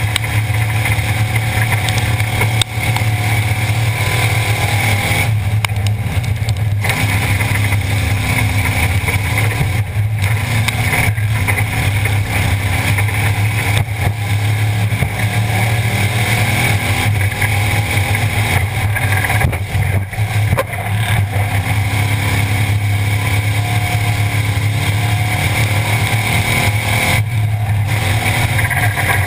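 Pure Stock race car's engine running hard at racing speed, loud and steady, heard from inside the cockpit. The engine note dips briefly a few times as the throttle is lifted for the turns.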